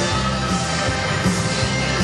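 Upbeat dance music with a steady beat, playing for a Latin ballroom dance.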